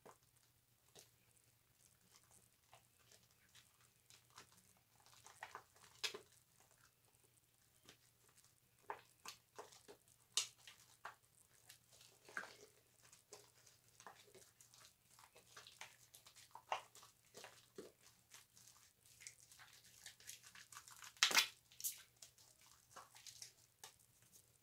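Wet bar soap being lathered: soft, irregular squishes and crackles of foam, with a louder, longer rub about three quarters of the way through.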